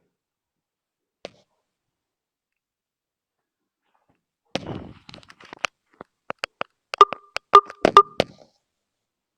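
A single click about a second in, then a run of irregular sharp taps and clicks starting about four and a half seconds in, the loudest of them, with a brief ring, near the end.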